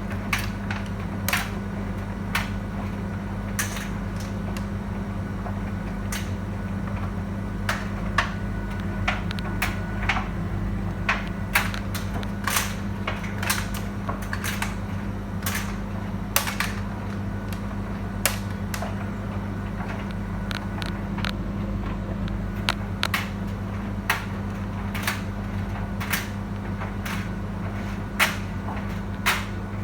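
Beko tumble dryer running inside a cupboard: a steady low motor hum with irregular sharp clicks and knocks from the turning drum load.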